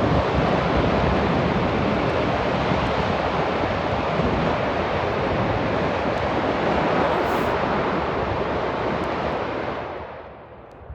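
Wind buffeting the microphone: a steady, loud rushing noise that dies down about ten seconds in.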